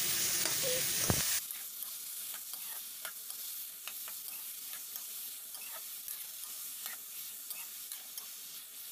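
Cut ridge gourd and tomato sizzling in hot oil in a kadai while a metal spatula stirs them, scraping and clicking against the pan. The sizzle drops sharply about a second and a half in, leaving a quieter sizzle under the scattered scrapes.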